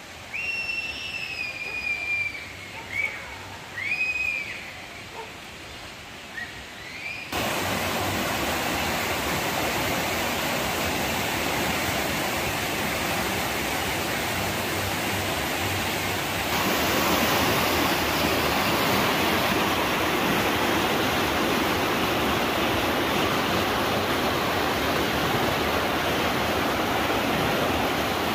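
A few short, high, sliding whistle-like calls over a quiet background, then from about seven seconds in the steady rush of a fast, rocky mountain river over stones, which gets louder again about halfway through.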